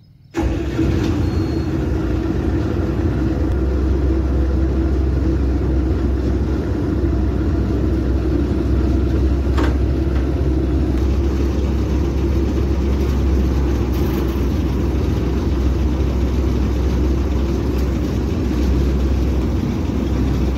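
Malkit 997 combine harvester's diesel engine, just started, running steadily. It comes in suddenly right at the start and holds a constant heavy low note.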